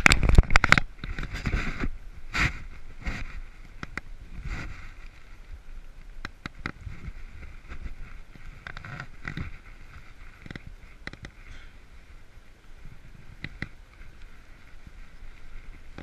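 Bicycle rolling over concrete pavement: the bike rattles and knocks, with a loud burst of clatter in the first second and scattered sharp knocks after, over a faint steady high-pitched tone.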